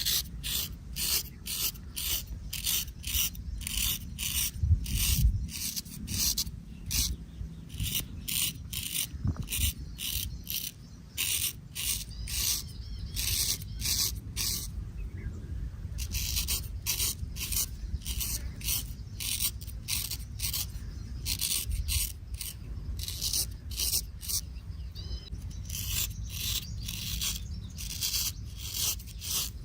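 Short strokes of a barber's straight razor scraping stubble off the skin, about two to three a second, with a short pause midway.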